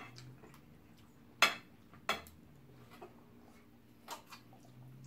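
Metal fork and spoon clinking and scraping against ceramic plates while eating: a few sharp clicks, the loudest about a second and a half in.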